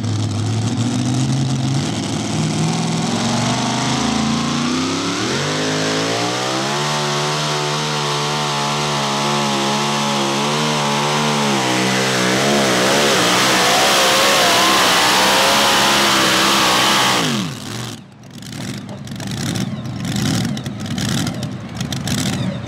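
Supercharged, alcohol-fuelled engine of a super modified two-wheel-drive pulling truck, running low at first, then revving up a few seconds in and held at high revs with a wavering pitch as the truck pulls the sled. About 17 seconds in the revs fall away sharply as the pull ends, leaving choppier, irregular lower sound.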